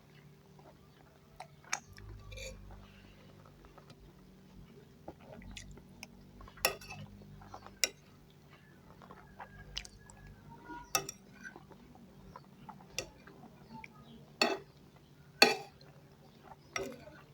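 Eating sounds: cutlery clinking against a plate in sharp, irregular clicks, the loudest near the end, with chewing in between.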